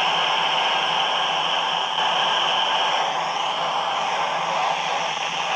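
Steady hiss of static from a handheld 2-metre FM transceiver tuned to the ISS downlink, with no voice coming through.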